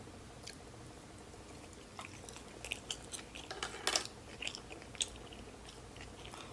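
A person chewing food close to the microphone: a run of short, wet mouth clicks, busiest from about two to five seconds in.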